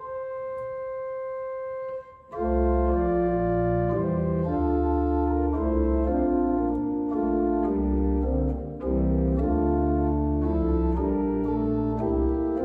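Church organ playing a hymn introduction. A single held note comes first; after a brief break about two seconds in, full sustained chords enter over deep pedal bass notes, with one short breath between phrases about two-thirds of the way through.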